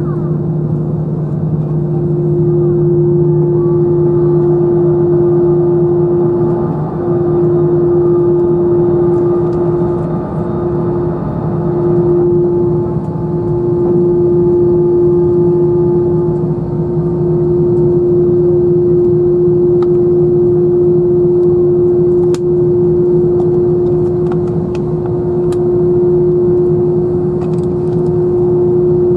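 Inside the cabin of an Airbus A321-211, the CFM56 turbofan engines run steadily: a constant drone with one strong unchanging tone. There are a few brief dips in loudness and faint cabin rattles late on.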